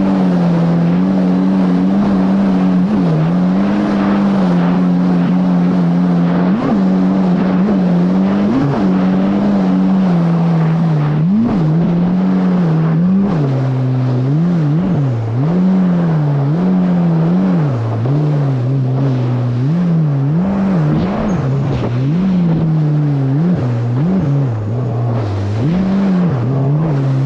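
Yamaha GP1800R SVHO jet ski's supercharged four-cylinder engine running at speed. Its pitch holds steady at first, then from about halfway in rises and dips every second or so.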